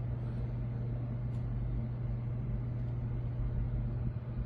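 A steady low hum with a deep rumble beneath it, and one faint click about a second and a half in.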